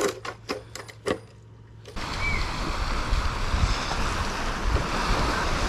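A few sharp metallic clicks and clinks from a socket and bolts. Then, about two seconds in, wind buffeting the microphone starts, with a low rumble and the wash of lake water.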